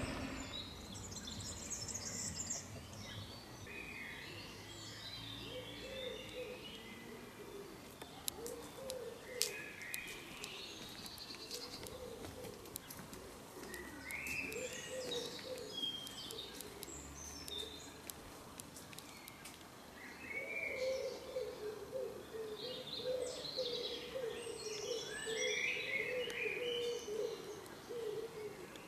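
Several songbirds singing and chirping in woodland, with a pigeon cooing low and repeatedly underneath, most steadily in the last third. A few faint clicks about a third of the way in.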